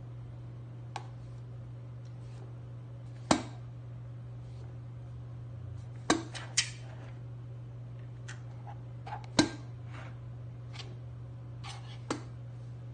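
Steady low hum with a handful of sharp clicks and taps scattered through it.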